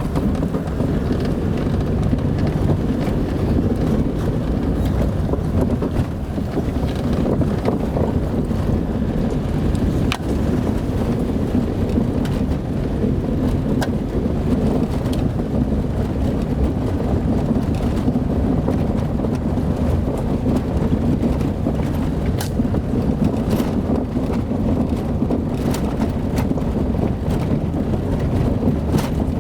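Car driving over a dirt road: a steady low rumble of engine and tyres, with scattered light clicks and knocks.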